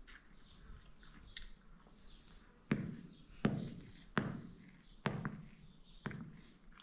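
A metal fork knocked against a whole melon: five dull thumps, each with a sharp click, about one a second, starting roughly two and a half seconds in.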